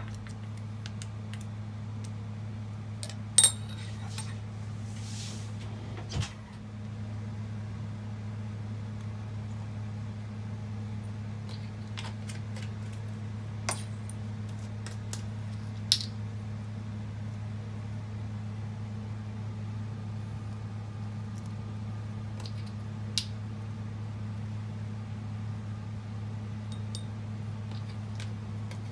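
A steady low hum throughout, with a few scattered light clicks and taps of plastic spoons against a small ceramic bowl and dishes; the loudest tap comes about three seconds in.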